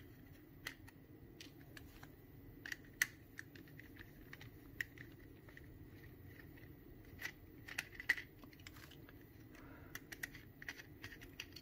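Scattered light plastic clicks and snaps, a few sharper ones about 3 and 8 seconds in, as a small screwdriver pries around the plastic earcup cover of JBL E65BTNC headphones and works its clip tabs loose.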